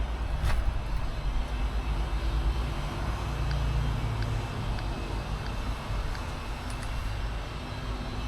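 Steady low rumble of a vehicle running, with a few faint ticks over it.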